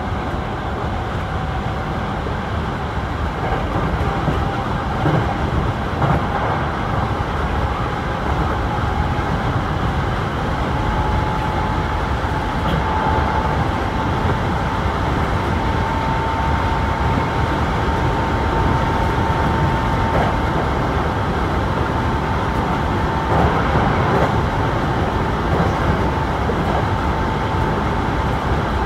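Hankyu Kobe Line electric train running at speed, heard from inside the front car: a steady rumble of wheels on rail with a continuous whine that steps slightly up in pitch about ten seconds in. A few short knocks come through, a pair about five seconds in and more near the end.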